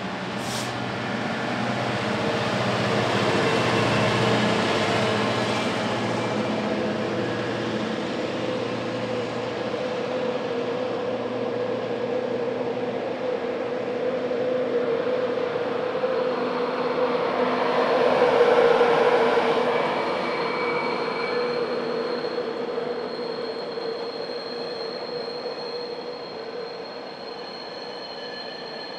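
A British Rail Class 66 diesel locomotive's two-stroke V12 engine drones as it hauls a long container freight train past. The drone is loudest in the first few seconds. The wagons' wheels then rumble past, loudest about two-thirds through. After that a steady high-pitched wheel squeal sets in and continues as the train recedes.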